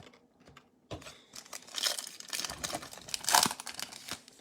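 A Topps Chrome Update trading card pack wrapper being torn open and crinkled. The crackling starts about a second in, lasts about three seconds, and is preceded by a few faint clicks of cards being handled.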